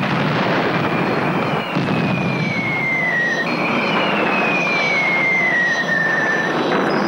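Whistles of falling aerial bombs: two long whistles, one after the other, each falling steadily in pitch, over a dense, steady roar and hiss.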